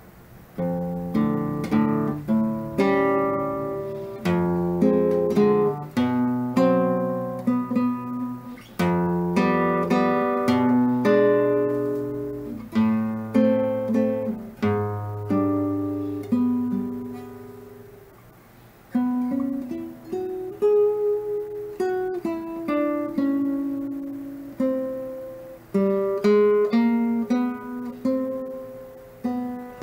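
Nylon-string classical guitar played fingerstyle: an improvised faux waltz of plucked melody notes over held bass notes. Near the middle the notes die away briefly before the playing picks up again.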